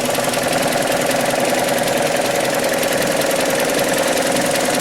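Hyundai ix35's 2.0-litre G4KD four-cylinder petrol engine idling with the automatic gearbox in Drive, with a loud, rapid knocking over the running engine. The mechanic cannot say whether it is the piston group knocking or something left unfastened after the timing chain was replaced.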